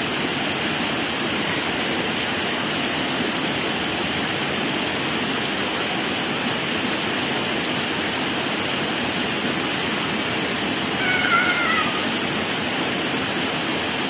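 Small waterfall pouring steadily over rocks, an even rushing of water. About eleven seconds in, a brief high-pitched wavering cry rises over it.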